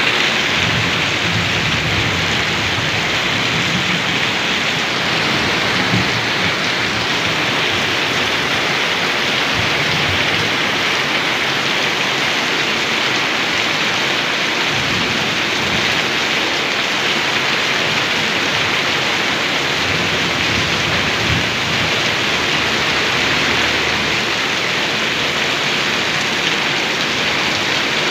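Steady, even hiss of falling water, with faint irregular low rumbles underneath.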